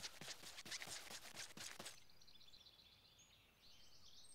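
Faint cartoon footsteps walking on a dirt path, quick and even at about four or five steps a second, stopping abruptly about two seconds in. After that come faint bird chirps of outdoor ambience.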